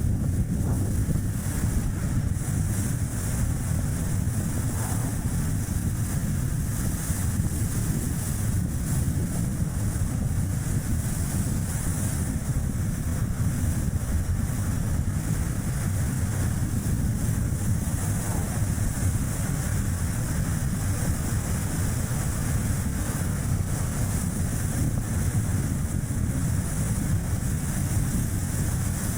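Strong wind rushing and buffeting on the microphone, over steady tyre and road noise from a small Chevrolet Spark city car driving along.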